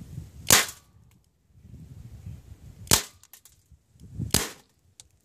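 Crosman 1077 CO2 pellet rifle fired three times: sharp cracks about two and a half seconds, then about one and a half seconds, apart.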